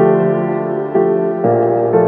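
Slow, ambient instrumental music of sustained keyboard chords. A new chord is struck about a second in and another half a second later, each ringing on.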